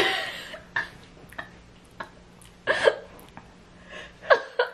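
A few short, sudden gasps and throaty catches of breath, hiccup-like, with quiet stretches between. They come from someone swallowing a spoonful of apple cider vinegar.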